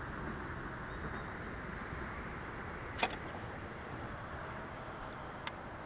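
Steady rushing noise of open-air ambience on a fishing boat's deck, with a sharp click about three seconds in and a fainter click near the end.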